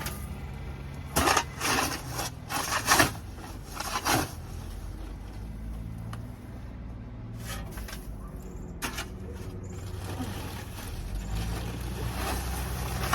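Tool scraping and scooping through old packed wood-shaving and manure litter on a chicken coop floor: a quick run of short scrapes in the first few seconds and two more later on, over a steady low hum.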